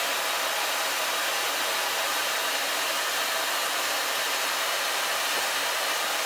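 Shop vacuum running steadily with its nozzle at a milling cutter, drawing away the fibrous chips as the mill takes a light skimming cut in phenolic (Garolite) board. A constant, even rush of air and motor noise.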